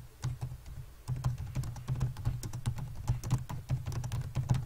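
Typing on a computer keyboard: a few scattered keystrokes, then from about a second in a quick steady run of key clicks.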